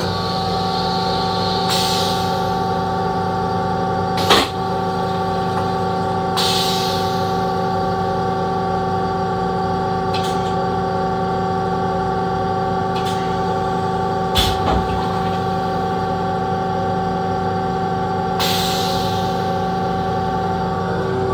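Steady hum of an M7 electric railcar's onboard equipment, with several fixed tones, heard in the car's small restroom. Three short hisses come through it, and there are two sharp knocks, the louder about four seconds in.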